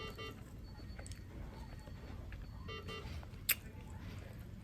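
Hospital patient monitor beeping in short multi-tone chimes that repeat about every two and a half seconds, over a low steady hum. A single sharp click about three and a half seconds in.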